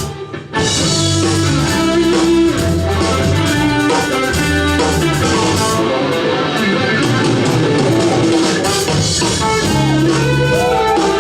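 Live band playing an instrumental jazz-fusion cover: guitar lead over bass and drum kit. The band breaks off for a moment right at the start, then comes straight back in.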